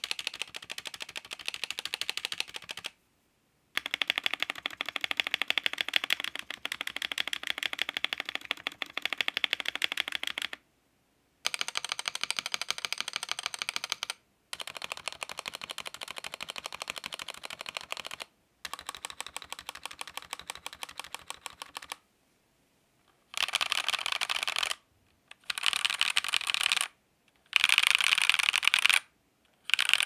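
Fast typing on a Redragon K631 PRO SE mechanical keyboard: a dense clatter of keystrokes in runs of a few seconds, broken by short, sudden gaps of silence. Its switches and stabilizers are pre-lubricated and its case has no sound-absorbing material; the reviewer finds the stabilizers rattle.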